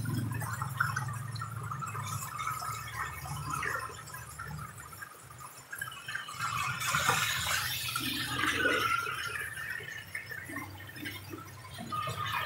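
Rain falling on a wet road and puddles, a steady hiss that grows heavier about seven seconds in, with a low steady hum underneath in the first half.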